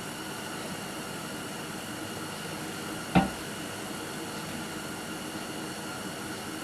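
A single sharp shot from an 18-gauge brad nailer driving a brad into the tool chest carcass, about three seconds in, over a steady shop hum.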